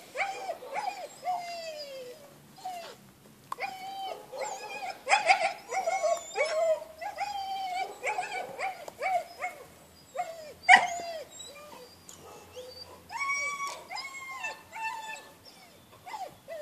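German Shepherd puppy whining and yelping repeatedly in short, wavering, high calls while chasing a toy on a rope, with two louder, sharper yelps about five and eleven seconds in.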